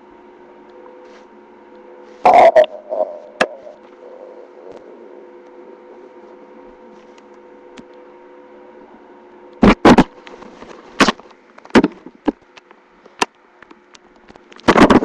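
A hungry stomach growling and gurgling close to the microphone in short, loud bursts: one about two seconds in, then a string of them from about two-thirds of the way through to the end, some falling in pitch. A steady hum runs underneath.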